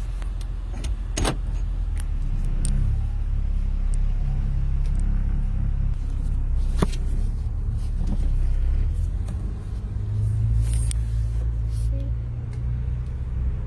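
Low rumble of a car's engine and road noise heard from inside the cabin as the car is driven, with a few sharp clicks and knocks.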